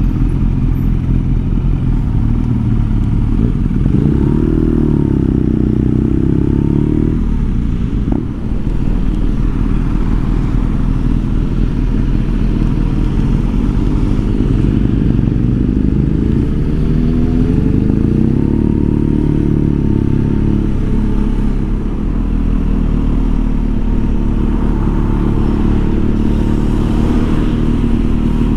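BMW R nineT's 1170 cc boxer twin running under way in town traffic, its pitch rising twice as the rider accelerates, about 4 and 15 seconds in. A brief dip with a click comes about eight seconds in.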